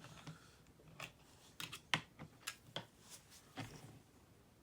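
Scattered small clicks and taps from small hand tools being handled, as tool tips are tried in a tiny T6 Torx drive screw.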